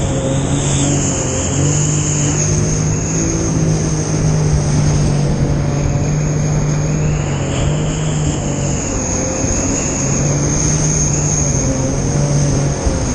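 Jet ski engine running steadily under way, its pitch shifting up and down a little as the throttle changes, over a constant rush of water and wind.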